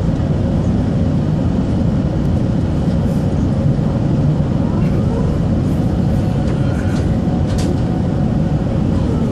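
Steady cabin noise inside an Airbus A380 descending on approach: a low rumble of engines and airflow with a faint steady hum, and a few faint clicks near the end.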